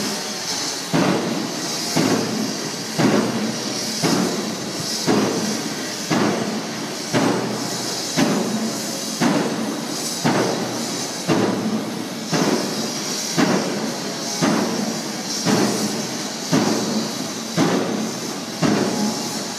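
Pile driver's hammer striking a pile, one heavy clanging blow about every second in a steady rhythm, starting about a second in, with a hiss between blows.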